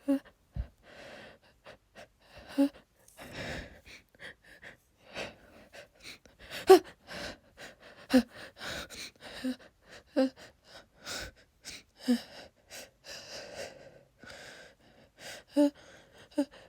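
A woman in a pollen allergy sneezing fit: a string of short, sharp gasping breaths and wheezy sniffs between sneezes, with a few harder bursts, the loudest about seven seconds in.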